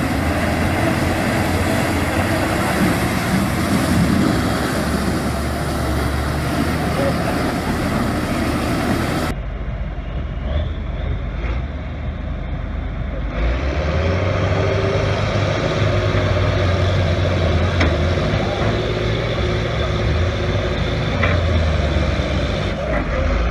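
Large tractor diesel engines running hard under load in a tug of war, with tyres churning. About nine seconds in the sound changes abruptly to a Belarus K-700 and a John Deere 8420 straining against each other in mud, the engines running with a steady low tone.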